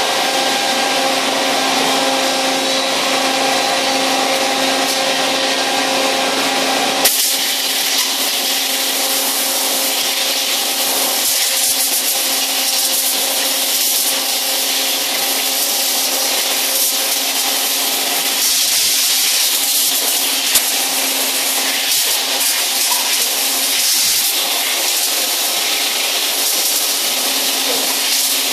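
Steady din of a row of CNC machining centres running: a constant hum with several steady tones over a hiss. About a quarter of the way in the hiss turns brighter and the deepest rumble drops away, and a few faint clicks come through.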